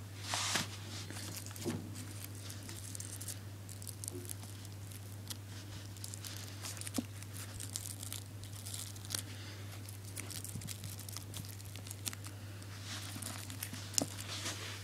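Tissue paper crinkling and rustling as small pieces are scrunched and pressed by hand onto a craft-stick frame, with scattered light clicks, a slightly louder rustle near the start and again near the end, over a steady low hum.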